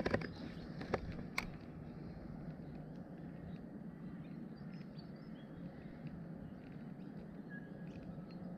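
A few sharp clicks in the first second and a half, then faint steady outdoor ambience with scattered faint high chirps.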